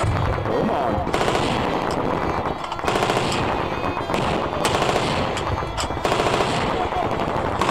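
Close, rapid automatic gunfire from rifles and machine guns in a firefight, running continuously with a few louder cracks standing out.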